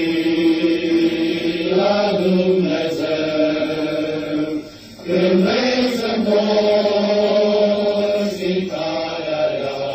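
Men's choir singing a slow hymn in harmony, holding long chords. There is a brief breath pause about five seconds in.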